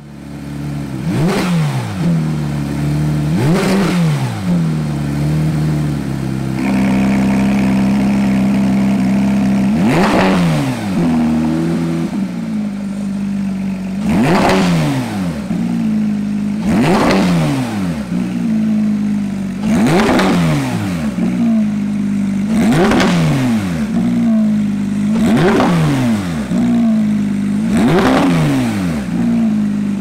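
Porsche 991 GT3's naturally aspirated flat-six, through an Armytrix Valvetronic aftermarket exhaust, idling and being blipped about nine times in quick rev bursts. Each burst rises sharply in pitch and drops straight back to idle.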